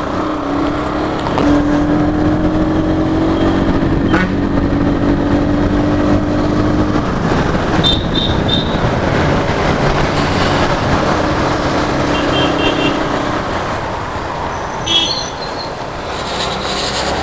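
Motorcycle engine running while riding, with a steady note that slowly rises twice, under a constant rush of wind on the microphone. Short high pips come in a few times around the middle and near the end.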